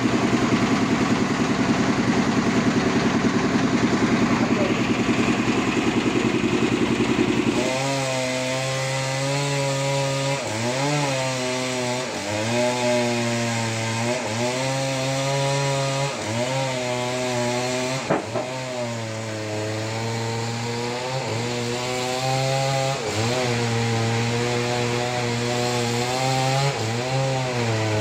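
An engine runs with a rapid low throb, then about eight seconds in the sound cuts over abruptly to a chainsaw cutting wood. Its engine pitch dips again and again as the chain bites into the log and recovers between cuts.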